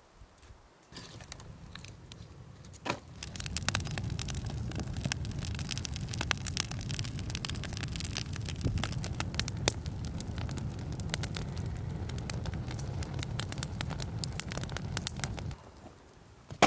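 Wood campfire burning: dense crackling and popping of burning sticks over a low steady rumble. It starts about a second in, grows louder about three seconds in, and stops shortly before the end.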